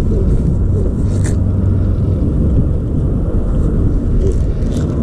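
Wind buffeting the camera microphone: a loud, steady low rumble, with a light click about a second in.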